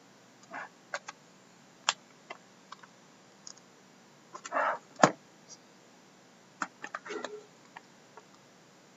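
Sealed hobby card boxes being handled on a table, giving scattered light clicks and taps. A short rustle comes about halfway, followed by one sharp, louder click, and a quick cluster of clicks comes later.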